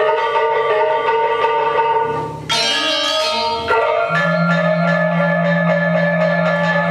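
Balinese gamelan music: rapid, even strokes on bronze metallophones ringing in several pitches. About two and a half seconds in a bright crashing shimmer lasts about a second. About four seconds in a low humming note comes in and holds under the metallophones.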